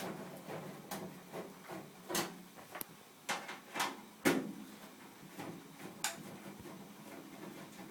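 Scattered clicks and knocks of a Phillips screwdriver and hands working on a microwave's metal casing while its cover screws are undone, the sharpest knocks about two and four seconds in, over a faint steady hum.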